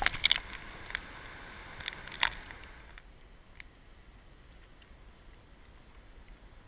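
Water sloshing around a waterproof camera held at the surface, with a few sharp clicks, then dropping suddenly about three seconds in to a faint steady wash of small waves.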